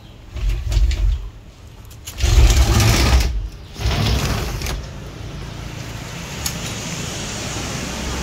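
Sliding glass door panels of an aluminium cabinet rolled along their tracks, rumbling in three pushes, the loudest about two seconds in. From about five seconds on, a steady hiss.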